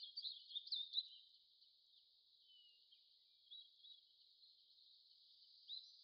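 Faint rainforest-style nature ambience: a steady high hiss with small high bird chirps, clustered in the first second and a few more scattered later.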